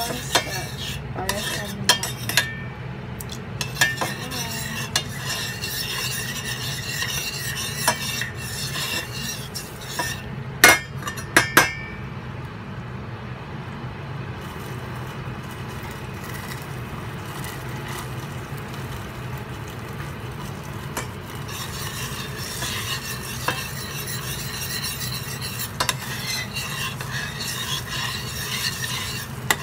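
A spoon stirring a cooking sauce in a stainless steel pot, scraping and clinking against the pot, with a few louder clinks about ten seconds in, over the steady hiss of the simmering sauce and a low hum.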